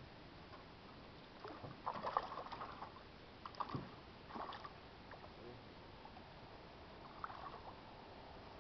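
Hooked smallmouth bass thrashing at the surface beside a canoe, making light splashes and sloshes in a few short spells, the longest about two seconds in.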